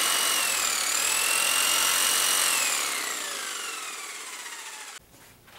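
A power saw running with a loud whine; its pitch dips briefly about a second in, then holds. From about three seconds in it winds down, falling in pitch and fading, until it cuts off suddenly.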